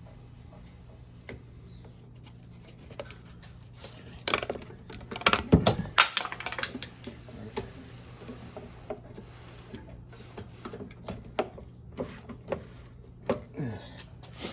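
Clicks and knocks of the mower's plastic air filter box parts being handled and fitted over the carburetor, with a few short squeaks that fall in pitch, over a steady low hum.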